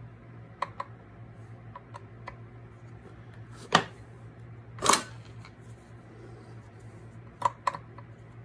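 Small metallic clicks and clinks of a hand screwdriver working the oil pump screws inside a Stihl MS460 chainsaw. There are two louder clacks about four and five seconds in and a quick double click near the end, over a steady low hum.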